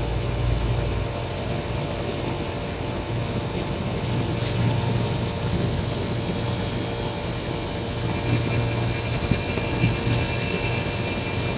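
Steady drone of running machinery, a constant low hum with a few steady tones over it, and a brief click about four and a half seconds in.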